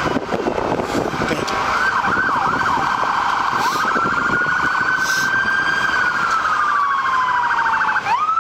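Emergency vehicle siren sounding. It gives a few quick up-and-down sweeps, then a long wail that rises, holds with a fast warble, falls slowly, and rises sharply again near the end.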